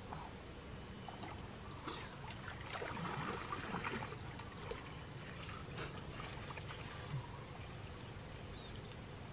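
Water sloshing and splashing as a person wades and swims through a pond, busiest with a run of splashes from about two to four and a half seconds in.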